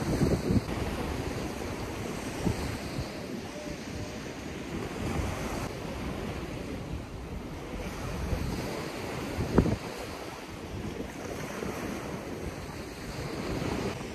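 Waves washing on a beach with wind buffeting the microphone, a steady rushing noise with gusty swells. One short thump about nine and a half seconds in.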